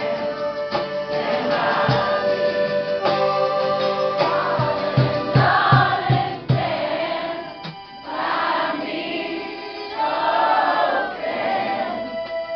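Live acoustic band performance: voices singing together over acoustic guitar and sustained keyboard notes, with a dip in the music about two thirds of the way through.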